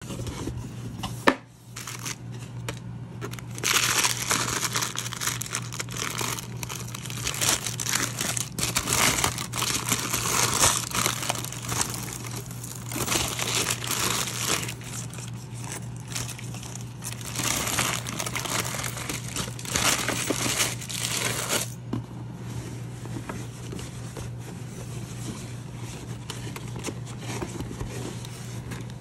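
Tissue paper being unwrapped and crinkled by hand in repeated bursts, with a sharp click about a second in; the crinkling stops about three-quarters of the way through, leaving softer rustling of the cloth dust bag. A steady low hum runs underneath.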